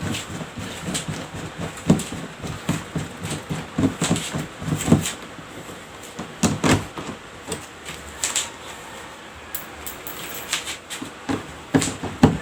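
Phillips screwdriver backing a screw out of an outlet, with irregular small clicks, scrapes and knocks of metal on the screw head and the device.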